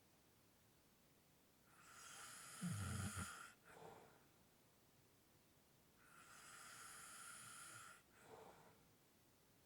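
A person snoring lightly: two slow, heavy breaths about four seconds apart. The first in-breath carries a short low snore, and the second is only breathing.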